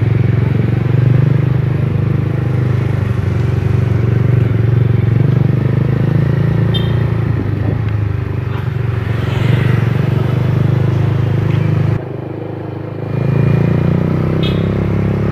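Motorcycle engine running steadily while riding, heard close from the rider's chest; it drops off for about a second around twelve seconds in and then picks up again.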